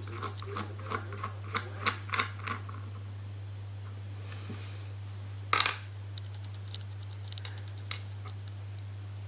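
Small metal lock parts clicking and clinking as a pin-tumbler cylinder is taken apart: a run of light clicks in the first couple of seconds, then one sharper metallic clink about five and a half seconds in.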